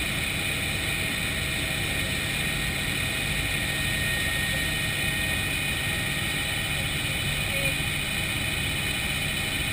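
Helicopter in flight, heard from inside the cockpit: a steady drone of turbine and rotor with a thin high whine running over it, unchanging in level.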